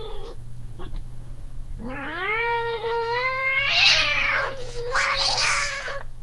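A domestic cat's defensive warning: a long yowl that rises in pitch from about two seconds in and breaks into a harsh hiss near four seconds, followed by a second yowl mixed with hissing about five seconds in.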